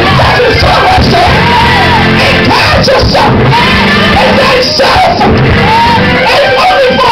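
Loud live church music with voices singing and shouting over it, the congregation joining in.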